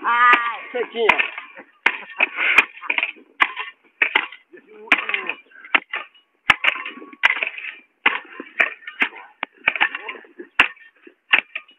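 Hand hoe chopping and scraping into dry, hard soil and weeds: repeated sharp strikes, about two a second, each with a short gritty scrape. A man's voice speaks one word at the start.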